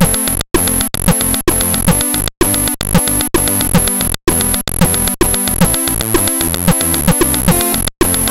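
ZX Spectrum chiptune music made in a tracker: several square-wave channels play melody and bass over a noisy percussion channel, with a steady high-pitched ringing tone above it all. The sound cuts out for an instant a few times.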